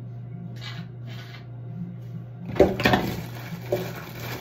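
Two short hisses, then louder rustling and clattering of objects being handled, with a few sharp clicks, over a steady low hum.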